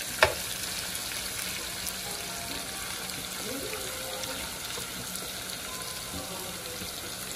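Salmon and shrimp pieces frying in a pan with a steady sizzle. A single sharp click just after the start sounds like a utensil knocking the pan.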